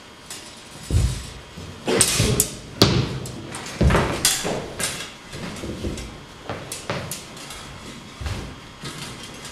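Fencing footwork and blade contact in a rapier-and-dagger bout: heavy thuds of feet stamping and lunging on a wooden floor, mixed with sharp clacks of the swords meeting, clustered between about one and five seconds in, then lighter scuffs and taps.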